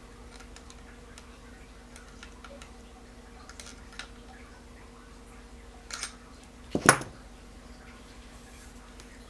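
Small metal parts and tools clicking and clinking while a spinning fishing reel is reassembled by hand: scattered light ticks, then a sharper, louder clink about seven seconds in.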